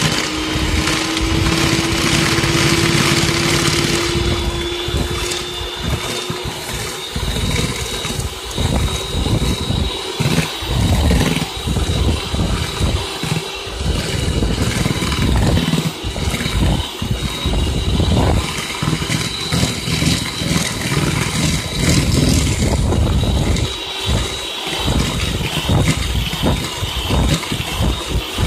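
Electric hand mixer running steadily, its beaters creaming butter and sugar in a plastic bowl. The motor's whine creeps up in pitch over the first few seconds and then holds, over an uneven churning as the beaters work through the mixture.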